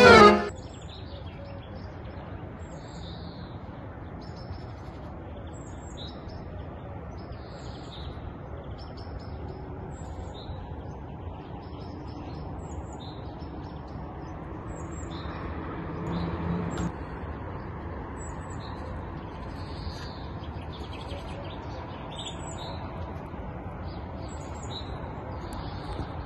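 Small birds chirping outdoors, with short high calls every second or so over a steady background hum. A low rumble swells briefly about sixteen seconds in.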